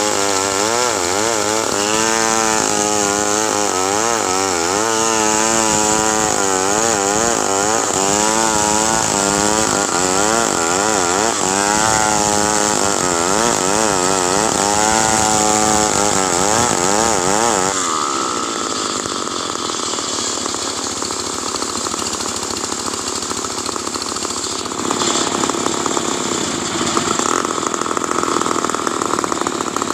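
Stihl chainsaw running and cutting wood, its engine pitch wavering up and down under load. About eighteen seconds in, the sound changes abruptly and becomes noisier.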